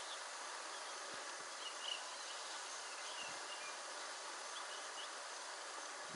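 Steady buzz of insects, with a few short faint bird chirps.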